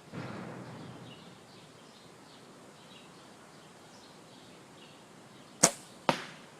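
A bow shooting a FOB-fletched arrow: a sharp snap as the bow fires near the end, followed about half a second later by a second sharp crack as the arrow strikes the target. A soft rustling rises briefly at the start.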